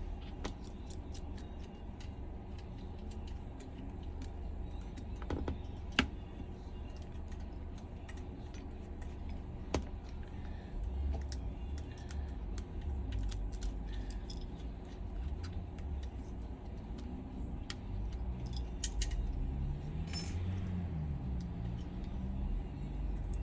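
Small metal repair tools clicking and tapping against the iPhone 11's parts while its connectors and screws are being undone, scattered light clicks over a steady low hum.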